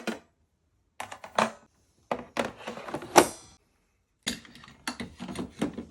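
Three short bursts of clicks, taps and knocks from hard objects being handled and set down, the loudest a sharp knock about three seconds in. Flat silences lie between the bursts.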